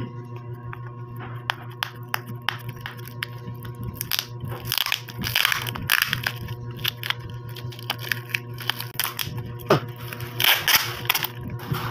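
Clear cellophane wrapping on a perfume box crinkling and tearing as it is peeled off by hand. Scattered small clicks come first, then louder bursts of crinkling from about four seconds in.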